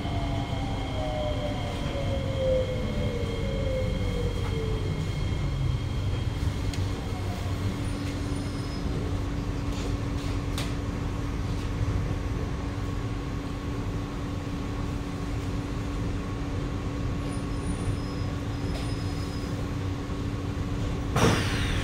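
Inside a Kawasaki–CRRC Sifang C151A metro car, the echoey traction motors whine in falling tones that fade out over the first few seconds as the train brakes into a station. A steady running rumble and a hum continue beneath. Just before the end there is a sudden loud burst as the doors open.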